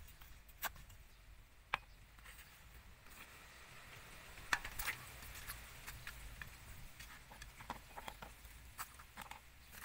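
Large kitchen knife cutting through napa cabbage onto a wooden chopping block: a handful of sharp knocks of the blade on the board, spaced a second or more apart, with soft rustling of the leaves between them.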